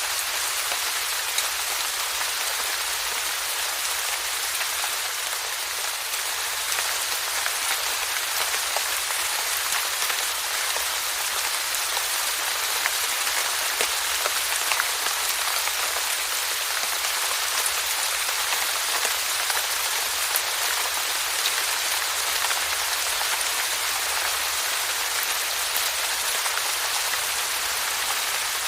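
Steady rainfall, a dense even hiss of drops with scattered small drop ticks.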